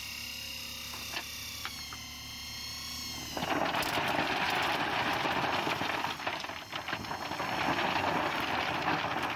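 A loader bucket of rounded river rock is tipped onto plastic water-storage crates. After a few seconds of machine running, the stones begin pouring out about three seconds in: a long, dense rattle and clatter of rocks sliding and striking each other and the crates.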